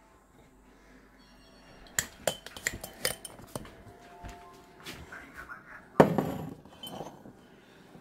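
Dishes and kitchenware clinking and knocking as they are shifted about on a counter: a string of sharp clicks from about two seconds in, and a heavier thud about six seconds in.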